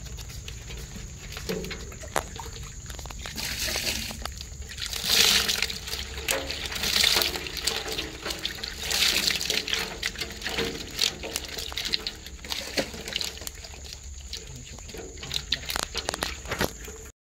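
Live climbing perch splashing and flopping in the shallow water of a metal basin, in irregular bursts of wet slapping and sloshing, loudest between about five and ten seconds in. The sound cuts off suddenly near the end.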